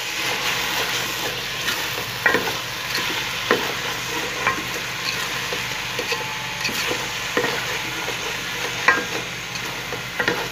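Thick apple jam sizzling in a metal pot while a spoon stirs and scrapes through it, with short sharp knocks of the spoon against the pot repeating irregularly. The water has cooked off, and the jam is stirred constantly on high heat to keep it from catching on the bottom.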